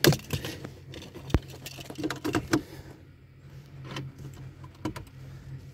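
A car key on a tag jangling, with a string of sharp clicks and knocks as it is handled and pushed into the ignition slot of a BMW E91. The loudest click comes at the very start. A low steady hum runs underneath.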